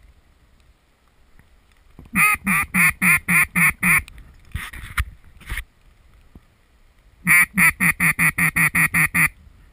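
Duck quacking in two rapid runs, about seven quacks and then about ten, some four or five to the second, the first run starting about two seconds in. A sharp click comes between the runs.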